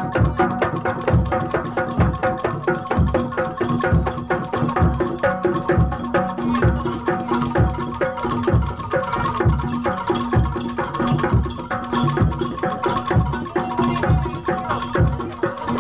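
Jaranan Dor ensemble music: a steady beat of low bass drum strokes with busy hand-drum strikes over sustained metallic tones from gongs.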